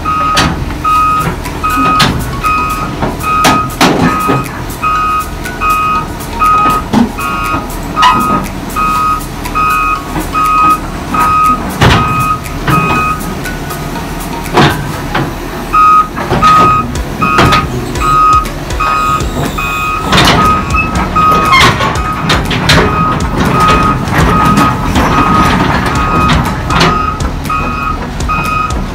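Volvo EC200D crawler excavator driving down off a steel lowbed trailer: its travel alarm beeps steadily about twice a second, breaking off for a few seconds about halfway. Sharp metal clanks from the tracks and a diesel engine running come through under the beeps.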